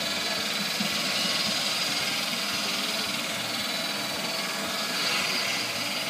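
Norwood LumberMate LM29 portable band sawmill's engine running steadily.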